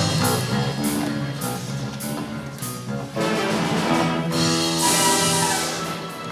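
Live band playing an instrumental passage between the choir's sung lines, with brass, drums and a cymbal crash about five seconds in.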